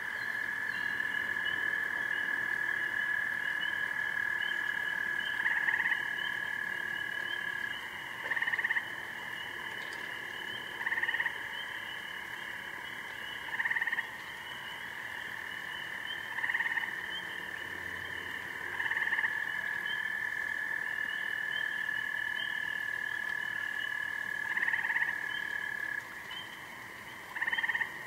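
Chorus of frogs calling at night. One long, steady, high trill runs and breaks off twice, while a shorter, louder trill repeats every few seconds over a fainter flickering chorus.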